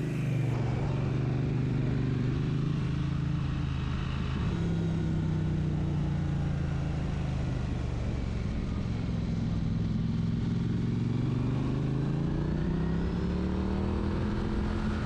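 Triumph Street Twin's 900 cc parallel-twin engine running as the motorcycle is ridden, heard from on the bike. The engine note steps up about four seconds in, sinks lower through the middle, then rises steadily near the end as the bike accelerates.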